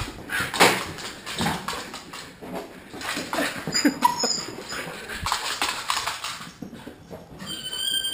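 Dogs whining and whimpering, with a few short high squeals, among scuffling knocks as they move about.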